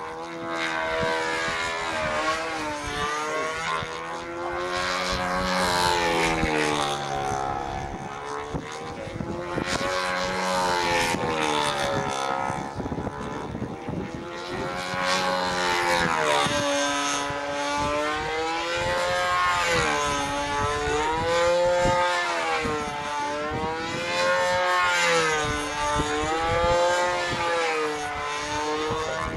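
Control-line stunt model airplane's engine running steadily, its pitch rising and falling in repeated swells every few seconds as the plane circles and works through its aerobatic maneuvers.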